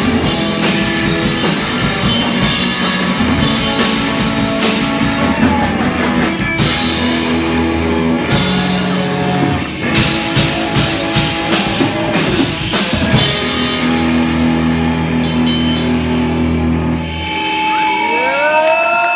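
Live rock band playing, with drum kit and guitar. Near the end the band stops, leaving gliding tones that rise and fall in pitch.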